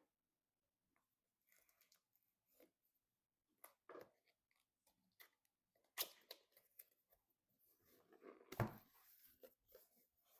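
Quiet handling of PC parts: scattered small clicks, taps and rustles. There is a sharp click about six seconds in and a louder knock followed by rustling around eight and a half seconds.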